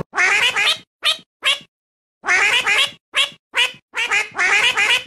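A string of short, high cat meows, about nine in quick bouncing bursts, each with a wavering pitch. They are cut apart by dead silence, like an edited sound effect.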